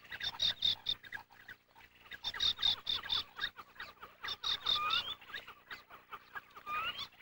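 Black terns calling at the nest: runs of quick, sharp, high calls, several a second, coming in three main bursts, with a few short rising notes later on.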